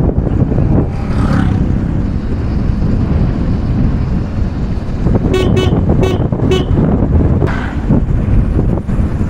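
Wind rushing over the microphone and a Bajaj Pulsar 200 NS motorcycle running on a downhill ride. About five seconds in, a horn toots four quick times.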